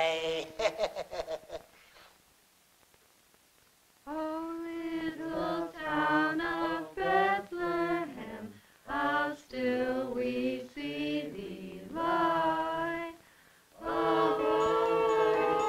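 Voices singing without accompaniment in short held phrases, starting after a pause of a couple of seconds. Near the end instrumental music begins.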